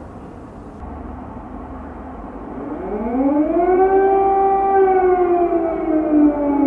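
Civil-defence air-raid siren wailing over a steady low background noise. It comes in about two and a half seconds in, rising in pitch, then holds and slowly falls away.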